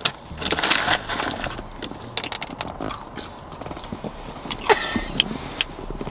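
A plastic snack bag crinkles as a hand reaches in, followed by small crunches as a mouthful of dry fruity cereal pieces is chewed. Throughout there are many sharp little clicks and rustles, denser in the first second or so.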